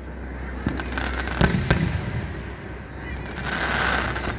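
Aerial fireworks going off: two sharp bangs about a quarter of a second apart, a second and a half in, with smaller pops around them, then a stretch of hissing noise near the end.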